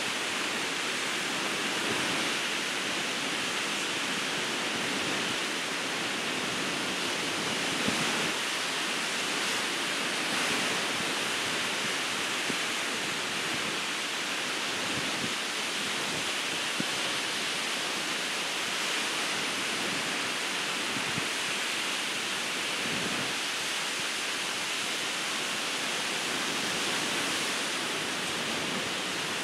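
Ocean surf breaking on a beach: a steady rushing wash of waves with only small swells in level.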